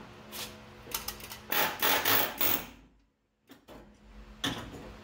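Pneumatic air chisel hammering in short bursts as it cuts and peels rusted cab sheet metal off a 1978 Ford F-150. The longest, loudest run comes around the middle, and another starts near the end.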